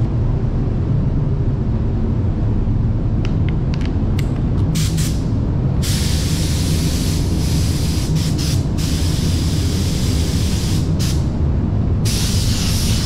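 Gravity-feed paint spray gun laying a second coat of water-based metallic base coat. It gives a few short hissing blips of the trigger about three to five seconds in, then longer bursts of spray hiss from about six seconds on, with brief breaks. All of it sits over a steady low rumble.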